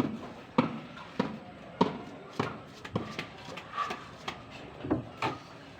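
Steady, even sharp knocks, about one every 0.6 seconds, as of a tool striking something hard.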